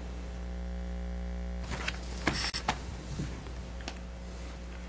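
Room tone in a meeting room: a steady low hum, with a few soft clicks and knocks starting about two seconds in.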